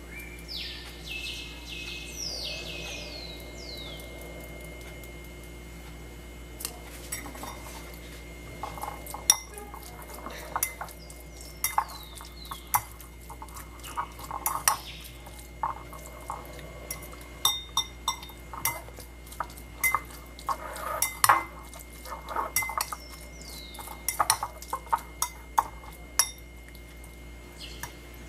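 Metal fork clinking and scraping against a ceramic bowl while mixing flaked tuna: a quick, irregular run of sharp clicks that starts several seconds in. In the first few seconds a bird gives a handful of short falling whistled calls.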